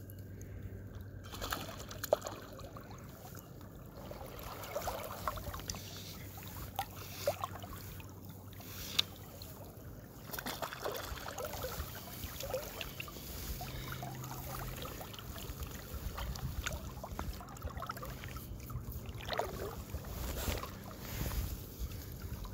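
Creek water lapping and gurgling close by, with a few light knocks.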